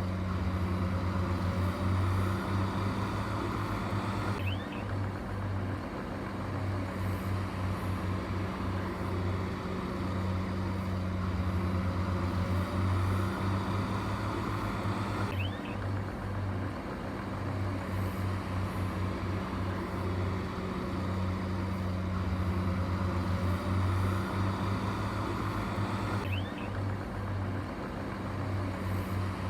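Heavy diesel engine of construction machinery running steadily with a low hum, its sound shifting slightly about every ten seconds.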